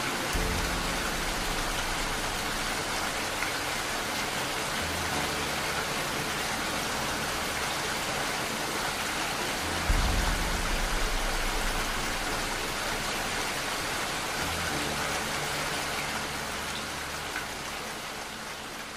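Steady rain, an even hiss of many drops, with a low deep rumble underneath that swells suddenly about halfway through.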